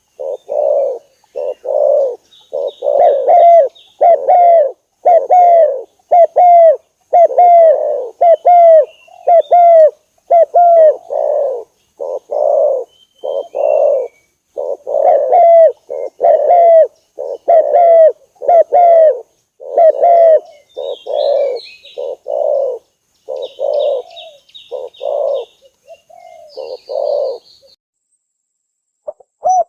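Spotted dove cooing in a long run of short coos, about two a second. Fainter high-pitched chirps sound above them, and the cooing stops shortly before the end.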